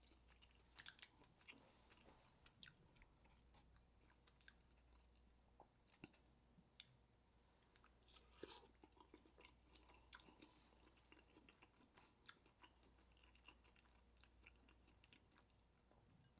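Faint chewing and mouth sounds of eating boiled snow crab meat, with scattered short, soft clicks.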